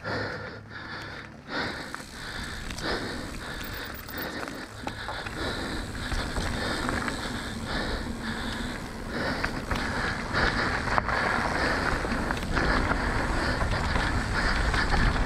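Mountain bike rolling fast down a dirt trail: knobby tyres on loose dirt, the bike rattling with occasional knocks over bumps, and wind noise on the microphone, growing louder from about the middle on as speed builds.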